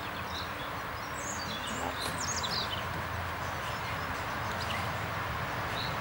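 Steady outdoor background rush with a brief flurry of small-bird chirps between about one and a half and three seconds in.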